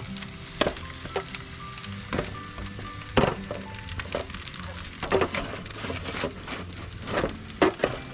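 Food sizzling on a barbecue grill, with irregular crackling pops, under background music.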